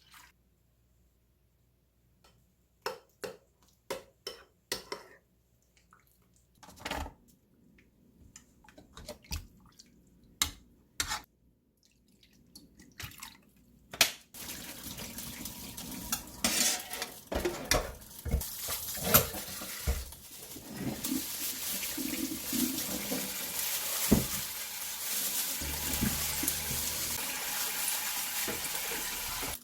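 Dishes and cutlery knocking and clinking in a sink, then a tap turned on about halfway through, water running steadily while the dishes keep clattering under it.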